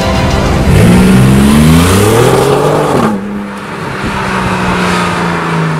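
Porsche 997 Turbo's twin-turbocharged flat-six accelerating hard, its revs climbing steeply for about two seconds. About three seconds in the revs drop sharply, and the engine then holds a steady lower note that eases down slowly.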